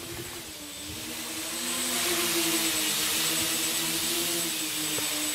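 A homemade hexacopter's six electric motors and propellers buzzing in flight, its pitch wavering slightly as the rotors change speed. It grows louder about a second in as it comes close overhead.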